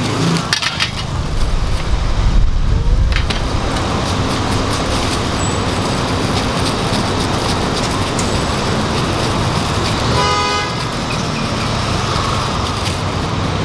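Street traffic running steadily, with a heavier low rumble of a vehicle passing about two seconds in and a short horn toot about ten seconds in.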